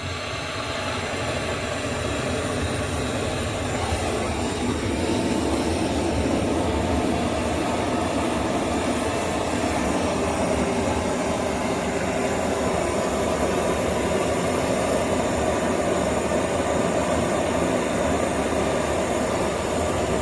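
A loud machine motor running steadily for about twenty seconds, then cutting off suddenly.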